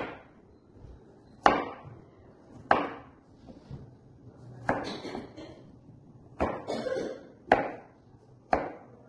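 Chef's knife dicing a vegetable on a plastic cutting board: about six sharp knocks of the blade hitting the board, roughly a second apart, two of them with a longer slicing scrape after them.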